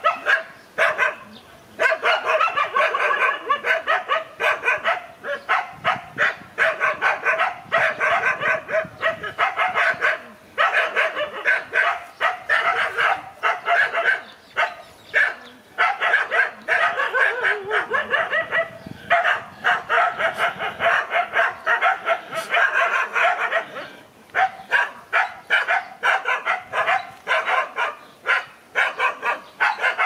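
Dogs barking in a rapid, nearly unbroken string of barks, a few short pauses between runs, thinning to separate barks in the last few seconds.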